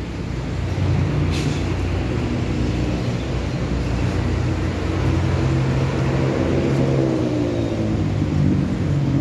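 A vehicle engine running steadily at low revs, its pitch sagging and recovering slightly around the middle.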